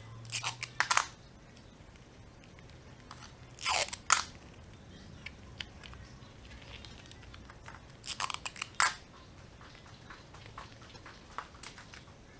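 Paper and clear sticky tape being handled and pressed by hand: three short bursts of rustling and crackling clicks, about a second in, about four seconds in and about eight seconds in, with small scattered ticks between.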